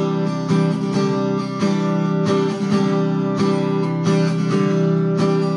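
Acoustic guitar strummed in a steady rhythm, sustained chords struck about twice a second, as the instrumental intro to a worship song.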